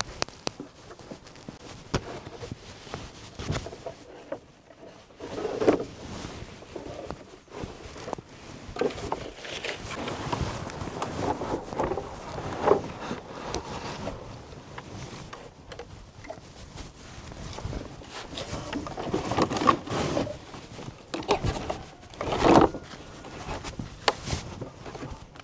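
Chickens clucking in short calls, mixed with scattered knocks, clicks and rustling from handling nearby.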